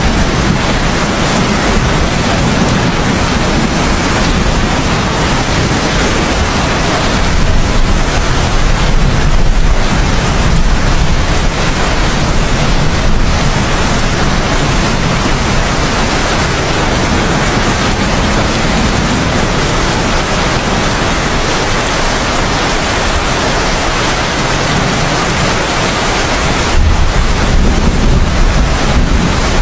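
Heavy, steady downpour of rain with a deep rumble of thunder underneath, growing louder near the end.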